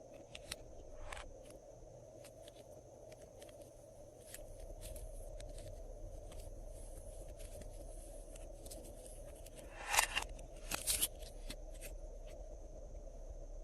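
Glossy slime being mixed and pressed by hand: soft wet squishing with scattered small clicks and pops, and a louder cluster of pops about ten seconds in.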